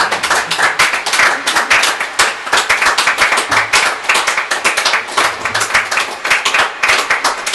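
Audience applauding, with many separate hand claps close together.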